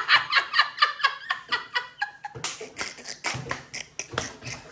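A person laughing in a long run of short, quick bursts, about five a second.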